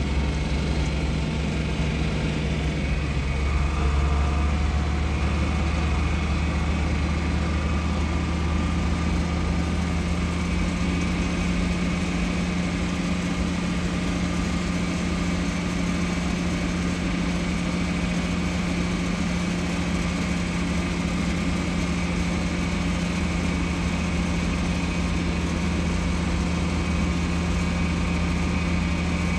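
Tractor engine running at a steady speed as the tractor drives along, a constant low drone heard from inside the cab.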